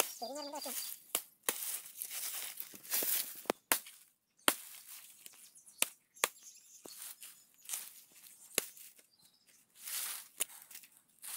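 Machete chopping into the fibrous crown of a felled coconut palm: irregular sharp blade strikes, mixed with the tearing and rustling of leaf sheaths and fibre being cut and pulled away.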